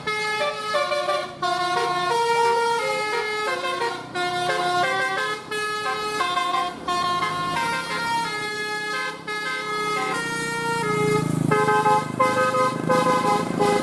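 Multi-tone 'telolet' bus horn of the basuri type, playing a melody of stepped notes, often several at once, with hardly a break. A low rumble swells in underneath about ten seconds in.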